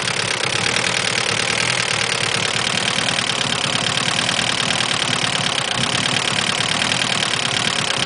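Mitsubishi DSM turbo four-cylinder engine idling steadily with a fast, even ticking, which the owner suspects is a bad lifter.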